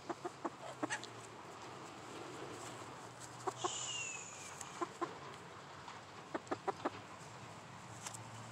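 Hens clucking softly: short single clucks scattered throughout, with a quick run of four about six seconds in. A high, falling call sounds about three and a half seconds in.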